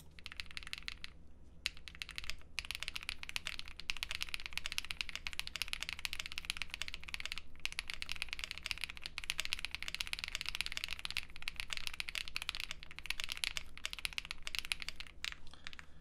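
Typing on a Mammoth75 mechanical keyboard with KTT Kang switches and GMK Lux keycaps, the PE foam film removed from under the plate: a fast, continuous run of key clacks with a few brief pauses.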